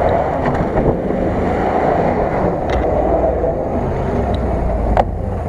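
Steady motor noise mixed with wind rushing over the microphone, with a few faint clicks.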